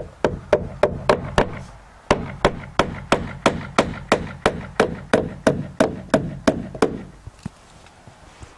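Hammer driving galvanized finishing nails into tongue-and-groove wooden soffit boards, a steady run of about three strikes a second with a brief pause about one and a half seconds in, stopping about seven seconds in.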